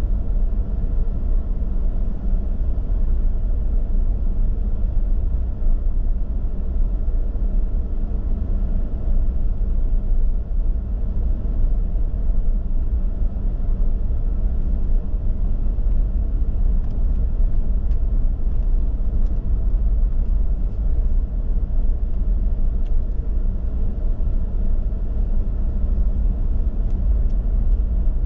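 Steady low rumble of a car being driven, tyre and engine noise, with a few faint ticks in the second half.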